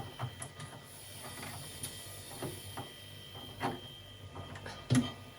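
A few separate clicks and knocks from a small bar fridge's thermostat dial being turned and handled while its temperature is set.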